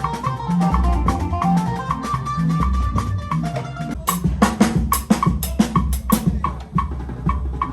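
Live band playing: a bass line and a high melodic line over drums, then from about four seconds in hard drum kit hits come to the fore.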